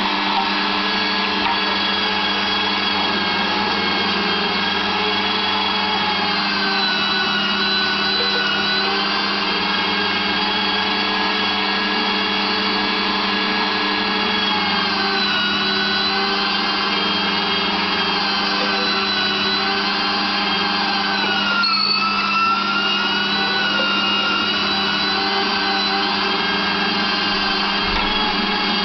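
Zelmer 986 electric meat grinder running, its motor giving a steady hum under a high whistling whine that slowly wavers in pitch. About three quarters of the way through, the pitch dips briefly. This whistle is what the owner complains of in the new machine.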